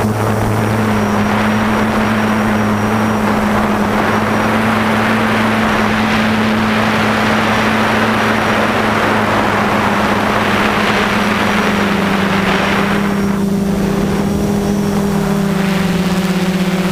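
F330 quadcopter's brushless motors and propellers running steadily, heard from its onboard camera as a loud, steady hum with a rush of wind over the microphone. The wind eases about two thirds of the way through, and the hum drops slightly in pitch near the end.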